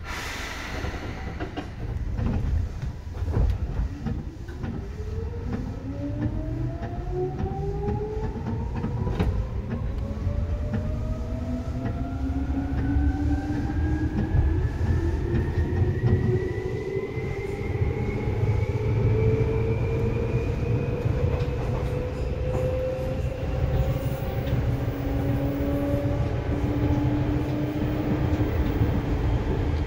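Seibu 2000 series electric train pulling away and accelerating, heard inside the car: the traction motors' whine rises steadily in pitch for about twenty seconds, then levels off, over the rumble of the wheels on the track.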